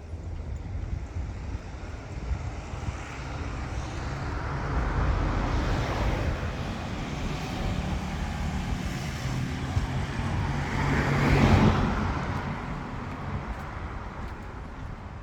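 A motor vehicle passing along the street: its engine hum and tyre noise grow louder to a peak about eleven seconds in, then fade away.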